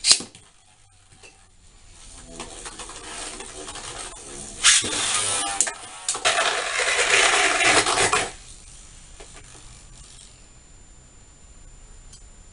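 Two Beyblade Burst tops, one a Heat Salamander combo, launched into a plastic stadium with a sharp snap, then spinning with a whirring hum. From about five to eight seconds in they clash and grind against each other in a loud rattling stretch, after which only a faint spin remains.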